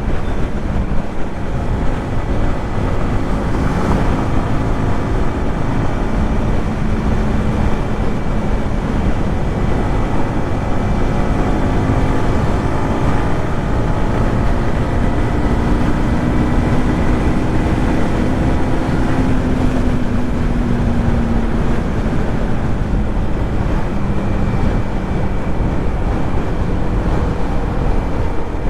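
Yamaha MT-15's 155 cc single-cylinder engine and exhaust running on the move at a steady cruise, its pitch rising gently and easing off again partway through, with wind rushing over the microphone.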